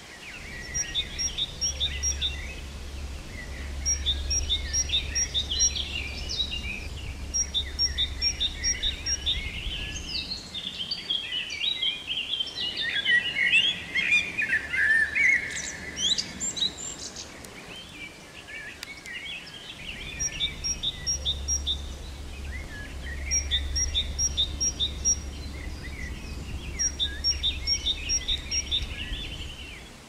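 Garden songbirds chirping and singing, short quick runs of high notes repeated again and again, with a denser tangle of calls in the middle. A low steady rumble sits underneath for the first third and again for the last third.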